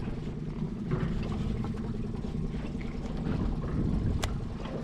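Boat engine running steadily at low revs, a constant low hum, with a single sharp click about four seconds in.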